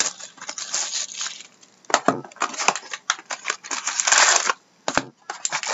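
Cardboard trading-card hobby box (Upper Deck Artifacts) being handled and torn open: a quick run of scrapes, clicks and crackles of card stock, with a longer tearing sound about four seconds in as the top flap is ripped open.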